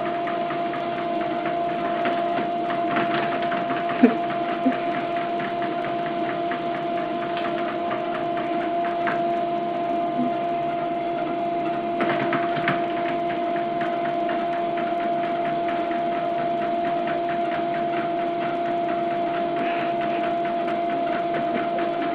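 A steady, even hum with a clear pitch, with a few faint clicks and knocks.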